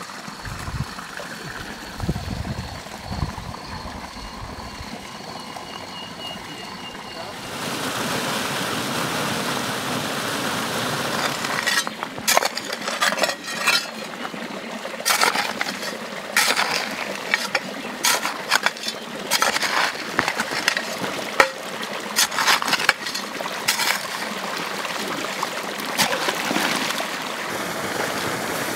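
Irrigation water let out of a dirt channel, starting to rush and run steadily about a quarter of the way in. Over the flow come repeated knocks and splashes of a shovel and rubber boots working in the wet channel.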